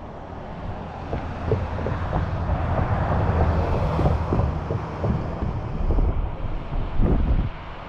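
Strong wind buffeting the microphone, a rough rumbling gust that builds about a second in and eases near the end.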